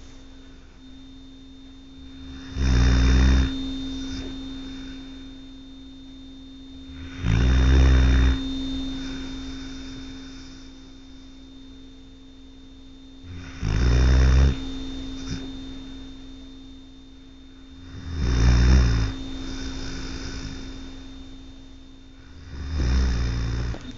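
A dog snoring in its sleep: five loud snores, about one every four to five seconds, each lasting about a second, over a steady background hum.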